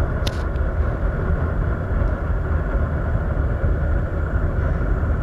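Steady road noise of a vehicle on the move: a continuous low rumble, with one brief click shortly after the start.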